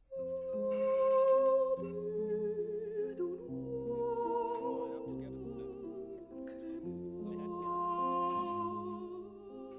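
Background music: a slow folk melody of long held notes with a slight waver, several tones sounding together.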